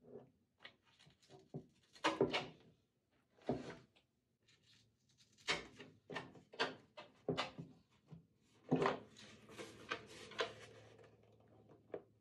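A wooden skateboard deck and its mounting nuts and bolts being handled on a tabletop: a run of small clicks and knocks, with louder clatters about two seconds in and just before nine seconds.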